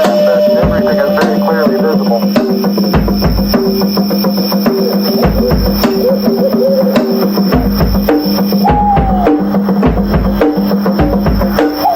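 Drum solo: fast, regular wood-block-like clicks over low drum hits that come and go, mixed with jungle sound effects.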